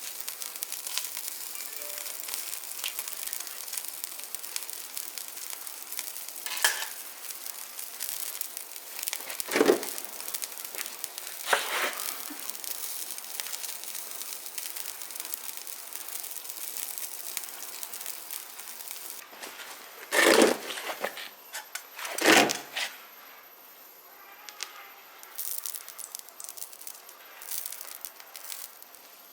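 Food sizzling and crackling on a small stainless steel barbecue grill, with a handful of louder sudden sounds; the sizzle dies down somewhat near the end.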